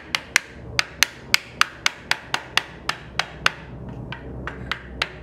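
A small hammer tapping on a wooden block held over a kumiko strip, driving the strip down into the wooden lattice. A steady run of sharp wooden taps, about four a second, a few lighter ones about four seconds in.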